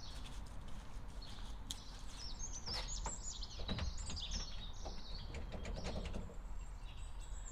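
Small birds calling with short high chirps over a steady low background rumble, with a few faint clicks; the van's engine is silent.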